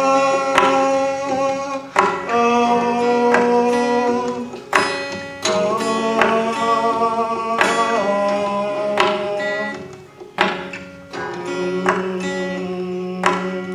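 Acoustic guitar playing an instrumental passage, with ringing sustained notes that change every second or two and sharp percussive hits about every second or so.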